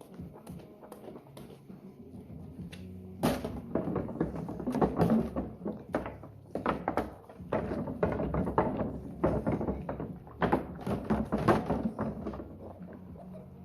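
Dishes and utensils being washed by hand, knocking and clinking together. There are a few light clicks at first, then from about three seconds in a denser, louder stretch of clattering and scrubbing that eases off near the end.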